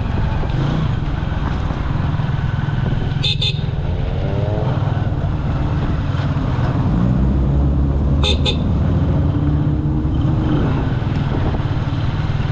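A Jialing 150 cc motorcycle engine runs steadily under way, with road and wind noise. A vehicle horn toots briefly twice, about 3 seconds in and about 8 seconds in.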